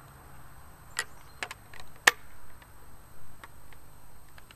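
Sharp metal and wood clicks and knocks from handling a Baikal IJ18M single-barrel shotgun and its detached wooden forend: a few scattered clicks, the loudest about two seconds in, then fainter ticks.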